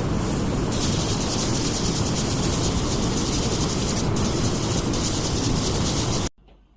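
Loud, steady rushing noise that cuts off suddenly about six seconds in.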